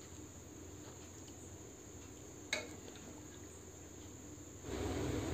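Faint steady high-pitched chirr over low room noise, with one light click about two and a half seconds in; near the end a low background rumble comes up.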